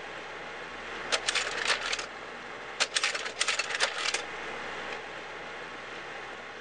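Two quick runs of sharp mechanical clicks, about a second apart, over a steady hiss.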